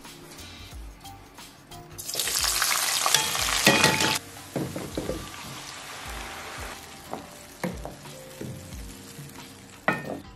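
Blended red pepper purée poured into hot oil and onions in a pan. It sizzles loudly for about two seconds as it hits the oil, then fries on more quietly, with a few knocks.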